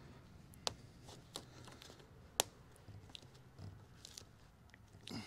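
Faint handling of a flexible plastic drain hose being pushed onto the drain outlet of a mini-split air handler: light rubbing and crinkling with a few sharp clicks, the loudest about two and a half seconds in.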